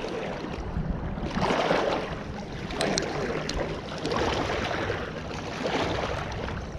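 Wind rumbling on the microphone over river water noise, swelling and easing, with a few light clicks about three seconds in.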